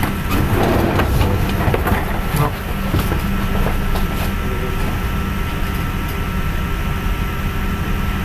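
Steady low background hum and rumble with a few thin steady whining tones over it. Several short clicks and knocks come in the first two and a half seconds.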